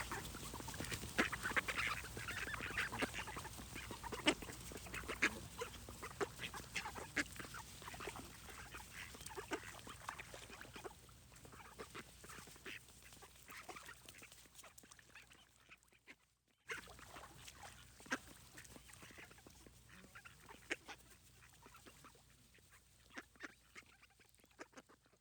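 Ducks quacking in a run of many short quacks, loudest in the first few seconds and growing fainter, with a brief break about sixteen seconds in.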